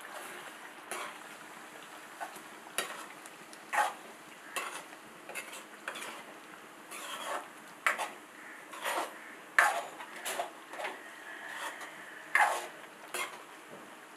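Metal ladle scraping and knocking against a steel kadai as thick chicken gravy is stirred: irregular short scrapes, several a few seconds apart.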